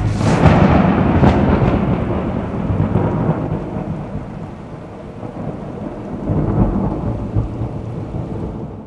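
Thunder rolling over steady rain: a loud rumble at the start that slowly dies away, a second rumble swelling up about six and a half seconds in, then fading out near the end.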